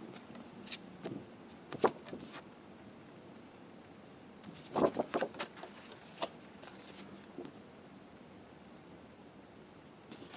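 Postcards being handled and flipped through: short paper rustles and light taps in a few scattered clusters, the loudest about five seconds in.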